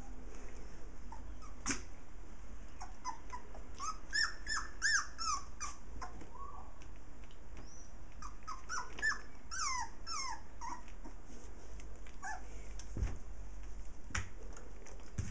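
Young puppies whimpering and yelping in short, high, squeaky calls, in two runs of quick calls about four and nine seconds in, with a few more near the end.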